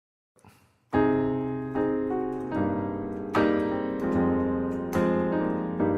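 Solo piano introduction: full chords struck about every 0.8 s, each ringing and fading before the next, starting about a second in after a brief silence.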